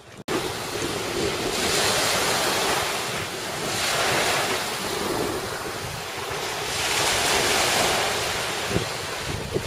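Small waves breaking and washing up on a sandy beach, the surf swelling and falling back every few seconds.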